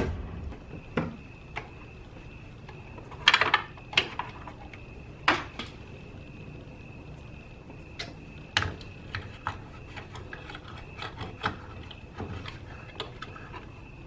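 Scattered light clicks and taps of hands handling wires and plastic parts in the Hunter Pro-HC irrigation controller's wiring compartment, with a few sharper knocks about three to five seconds in. A faint steady high whine sits underneath.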